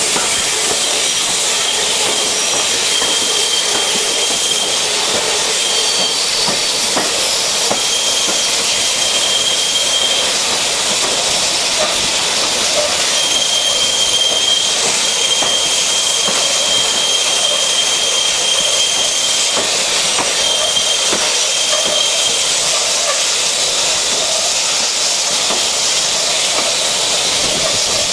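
Steam hiss and running noise from GWR King class steam locomotive 6023 King Edward II, heard from the coach right behind it as the train moves slowly. A thin, high squeal comes and goes several times.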